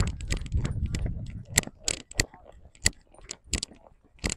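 A horse's metal tack jingling in an even rhythm of about one and a half clinks a second as the horse walks, after a low rumbling rustle in the first second and a half.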